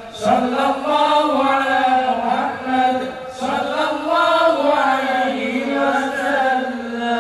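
Male voices chanting Islamic devotional sholawat in the Al Banjari style, sung through microphones and a PA, with long held and ornamented notes.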